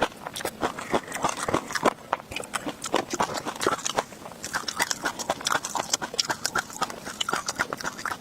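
Close-miked chewing of crunchy tobiko (flying fish roe): a dense, irregular crackle of many small pops and clicks.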